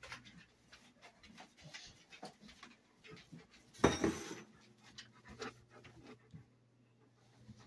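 Dog panting as it moves about on a hard floor, with faint scattered clicks. A louder clatter about four seconds in.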